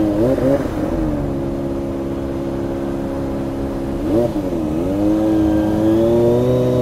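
Kawasaki ZX-25R's 249 cc inline-four engine running steadily at low revs, with two quick throttle blips where the pitch jumps up and falls back, about half a second in and again about four seconds in. Near the end the engine note climbs gently.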